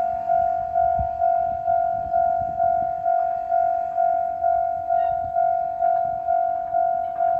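A Japanese railway level-crossing warning bell ringing: one clear tone struck steadily about twice a second, each strike fading before the next. It is the alarm that a train is approaching the crossing.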